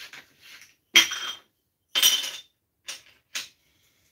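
Hard gas mask parts clinking and knocking together as they are handled and fitted: two loud, sharp clinks about a second apart, then two lighter knocks.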